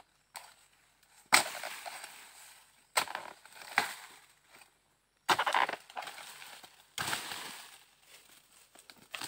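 Sharp dodos, a chisel blade on a long pole, chopping into the crown of a low oil palm to cut through frond and bunch stalks. Five hard strikes come one to two seconds apart, each followed by rustling of palm fronds.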